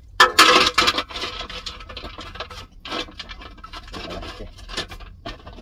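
Large river stones scraping and grinding against each other and a metal basin as they are set in by hand. It is loudest in a harsh burst about a quarter second in, followed by a series of smaller scrapes and knocks.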